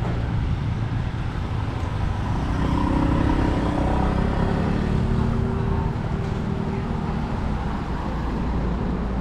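A motor vehicle's engine passing close by, loudest and most clearly heard about three to five seconds in, its pitch dropping slightly as it goes, over a steady low rumble.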